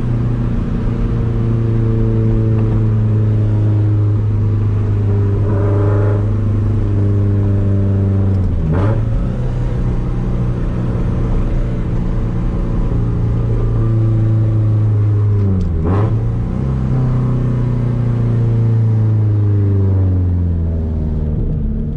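Straight-piped 2004 Subaru WRX STI's turbocharged 2.5-litre flat-four running at a light cruise, loud inside the cabin. The engine note dips sharply and picks back up twice, about nine and sixteen seconds in, as gears change, and sinks slowly near the end.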